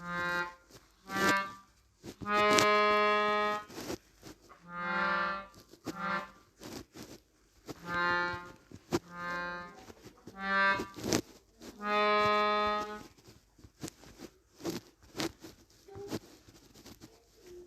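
Melodica played in a string of separate held notes of about the same pitch, some short and some over a second long, with sharp clicks between them.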